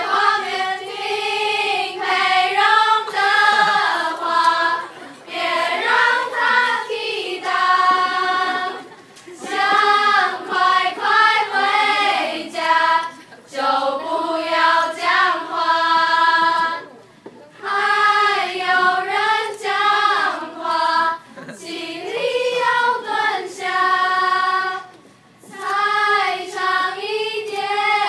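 A choir of young voices singing a melody in phrases of held notes, with brief breaks between the phrases.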